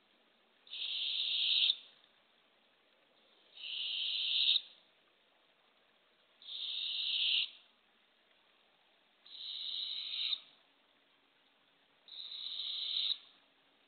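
Barred owlet's begging call: a raspy hiss about a second long that swells and then cuts off sharply, repeated five times about every three seconds. It is the hungry owlet calling for food.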